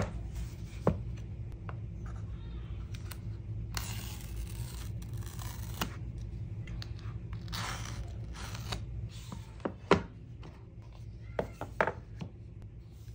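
Paper tear-strip seals being ripped off the back of an iPhone 15 Plus retail box: two long tearing rips, one about four seconds in and one near eight seconds, with a few short knocks of the cardboard box being handled and its lid lifted off near the end.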